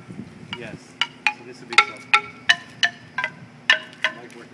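Wooden-bar xylophone struck with two mallets: a run of single notes at changing pitches, about two or three a second from about a second in, each ringing briefly.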